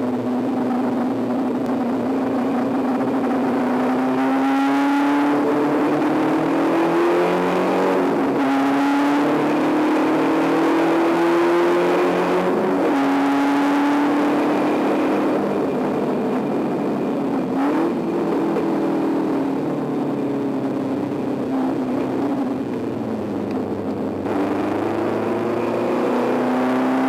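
Spec Racer Ford's Ford four-cylinder engine heard from the cockpit at full throttle. It revs up through the gears, its pitch climbing and then dropping at each of about four upshifts. It then falls away as the car slows for a corner, and climbs again near the end.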